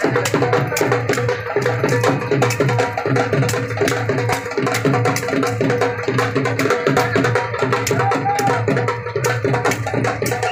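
Dhol drums beaten in a fast, steady beat of sharp strikes.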